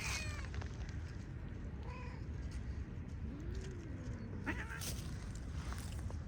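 A cat meowing twice: a short call about two seconds in, then a longer, lower call that rises and falls.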